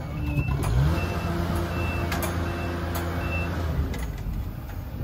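A machine's backup alarm beeping about every three-quarters of a second over its engine, which revs up just before a second in, holds steady, and drops back near the end. A few sharp clicks sound over it.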